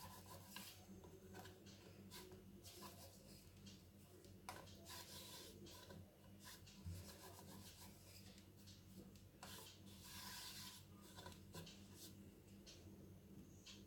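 Faint, intermittent rubbing of a rolling pin rolling out dough on a wooden board, with a few light knocks, over a low steady hum.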